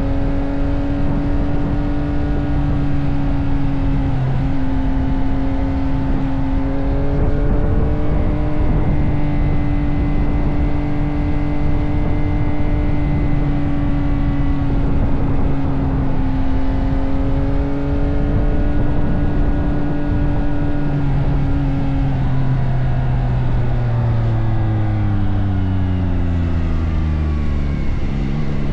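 Yamaha R9 sport motorcycle's inline-three engine running with a steady, level note for about twenty seconds, then its pitch falls gradually over the last several seconds.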